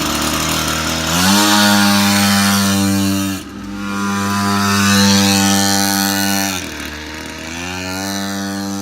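A 49cc mini dirt bike engine running and being revved up and down. It climbs about a second in and holds high, drops briefly and climbs again, then falls back toward idle before picking up slightly near the end.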